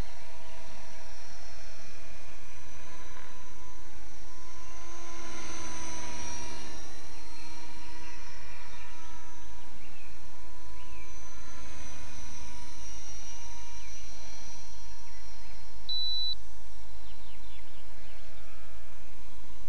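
Radio-controlled model helicopter flying: a steady multi-tone whine from its motor and rotor, the pitch sliding up and down as it passes, about six seconds in and again near twelve seconds. A short high beep about sixteen seconds in.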